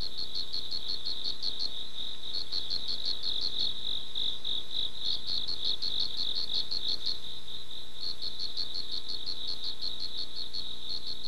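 Crickets chirping as a night-time ambience: rapid high trills a second or two long, with short pauses between them.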